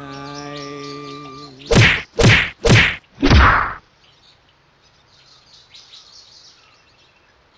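Background music ends on a held note, then four heavy thwacks in quick succession, the blows of a beating, the last one longer. After them, faint bird chirps.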